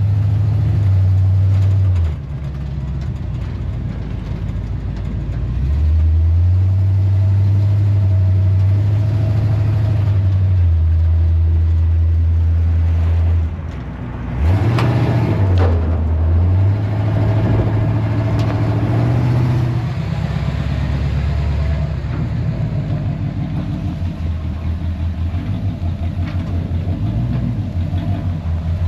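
1978 Chevrolet C10 pickup's engine running through its new welded-in builder exhaust kit while driving, the engine note swelling and easing with the throttle. It drops away sharply about halfway through, comes back up, and settles to a lower, rougher drone in the last third.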